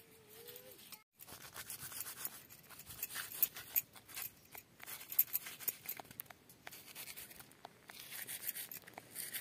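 Small snakehead fish rubbed and scraped by hand against gritty, sandy dirt to clean off scales and slime: a quick, irregular run of scratchy scrapes.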